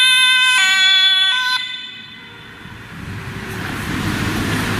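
Electronic two-tone police siren alternating between a high and a low pitch, switching about every 0.7 s, which cuts off about a second and a half in. About three seconds in, a steady rushing noise follows.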